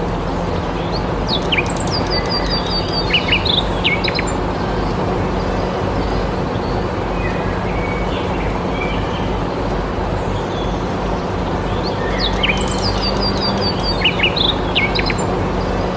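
A songbird singing two similar phrases of quick high chirps, the second about ten seconds after the first, over a steady noise bed with a low hum.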